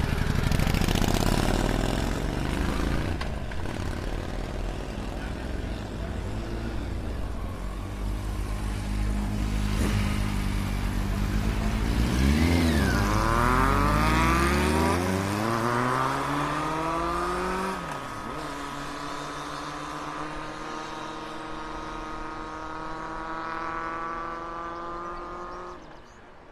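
Motorcycle engines: a bike pulls away loudly at the start, then an engine revs up and down several times around the middle. Then comes a steady engine note that slowly rises in pitch and fades out near the end.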